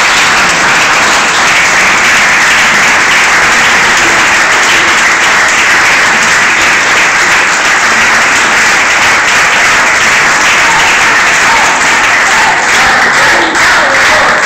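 Audience applauding, loud and close. Near the end the applause thins into separate claps.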